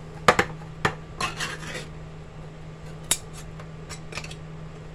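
Sharp metallic clicks and clinks with a little scraping as a small can of diced ham is handled and opened by hand. The clicks come in a scatter, most of them in the first two seconds, with a few single ones later.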